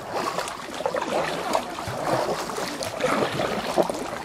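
Fast irrigation-ditch water rushing and splashing around a kayak as it runs through a stretch of white water, with irregular splashes.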